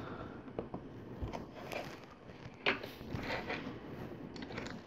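Faint clicks and rubbing of plastic LEGO pieces being handled and pressed together, with one sharper click about halfway through.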